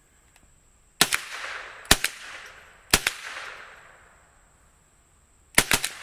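Rifle shots: three single shots about a second apart, then a quick run of shots close together near the end, each one trailing off in a long echo.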